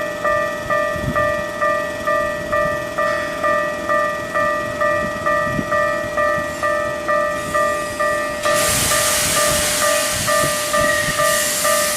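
Japanese level-crossing warning bell ringing in a steady repeated two-tone clang, about 1.7 strikes a second. About eight and a half seconds in, a loud steady hiss joins it.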